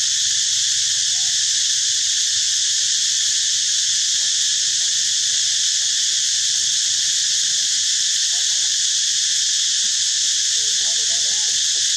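Steady, loud chorus of insects: a continuous high, even drone that never changes. Faint short calls come through underneath, a few of them near the end.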